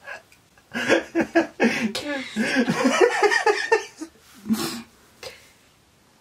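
A man and a woman laughing together in loud bursts for about three seconds, then a brief short laugh and a fade to quiet.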